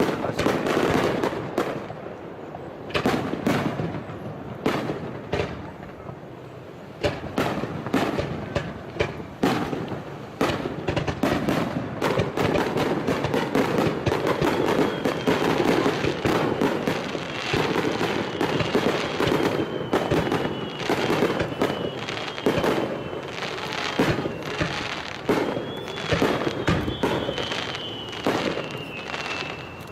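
Fireworks display: a rapid barrage of shells bursting one after another with dense crackling, the bangs coming several a second. In the second half a faint high whistle slides slowly down in pitch.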